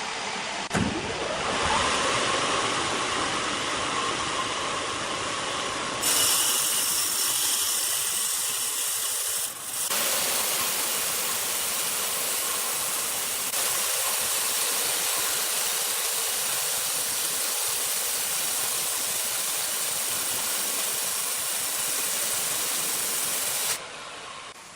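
Sawmill machinery running with a loud, steady, hiss-like noise that changes sharply several times, about 6, 10 and 24 seconds in, where clips are cut together.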